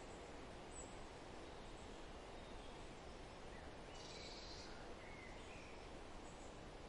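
Faint steady outdoor background noise with a few faint bird chirps, mostly about four to five seconds in.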